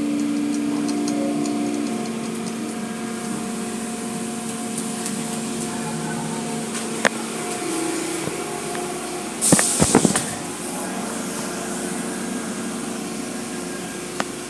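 Automatic car wash machinery running steadily with a hum of several held tones, heard from inside the car, with water streaming over the glass. A single sharp knock comes about seven seconds in, and a loud hissing burst of spray hits the car about nine and a half seconds in.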